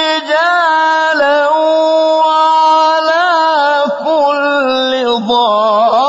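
A man reciting the Quran in Arabic in a melodic, drawn-out style, one voice holding long notes with short breaks between phrases and a wavering, ornamented turn near the end.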